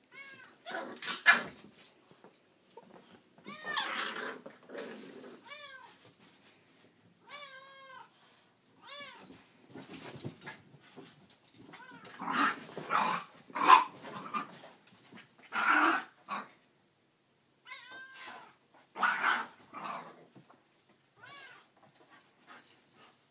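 A pit bull and a Chinese Crested dog play-fighting, with bursts of high-pitched, whiny yelps whose pitch rises and falls, mixed with rougher growling outbursts, in bouts every second or two with short pauses between them.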